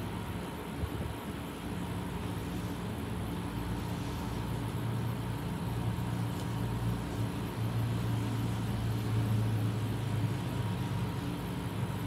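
A steady low droning hum with no clear strokes or pauses, getting somewhat stronger in the second half.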